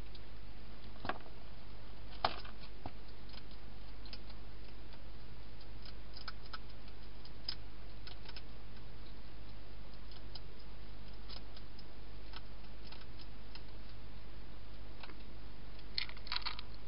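Wild hedgehog eating in a plastic feeding box: scattered small crunching clicks, with a quick cluster of them near the end, over a steady low hum.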